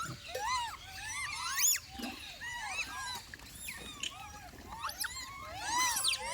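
Monkey squeaking: many short, high calls that rise and fall in pitch, several a second.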